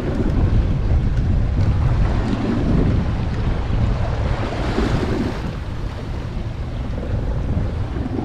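Wind buffeting the microphone over choppy sea washing around a small boat: a steady rushing noise, strongest in the low end, that swells briefly about five seconds in.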